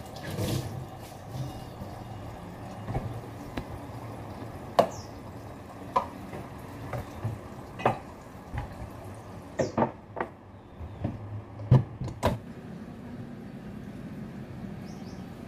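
Kitchen washing-up: a tap runs briefly at the start, then about a dozen sharp clacks and knocks of dishes and kitchenware being handled at the sink and put away in the cabinets.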